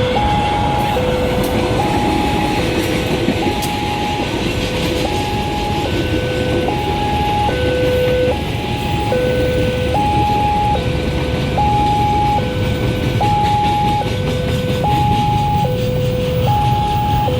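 Railway level-crossing warning siren sounding a continuous two-tone alarm, alternating between a low and a higher tone, each held for a little under a second. A steady low rumble runs underneath.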